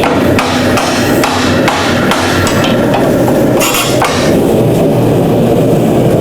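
A hammer striking a hot solid steel bar as it is bent around a steel mold: a string of sharp metal blows about two a second that stops about four seconds in. Under the blows runs the steady roar of the propane forge burner.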